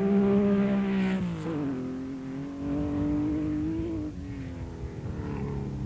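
Porsche 911 rally car's engine at high revs: a steady note that drops at a gear change about a second and a half in, climbs again, then fades as the car goes away.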